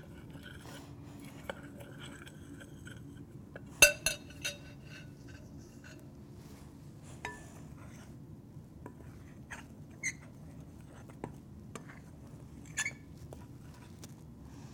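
A spoon clinking and scraping in a mixing bowl as it works clumps out of powdered sugar and cocoa: scattered clinks with a short ring, the loudest two close together about four seconds in.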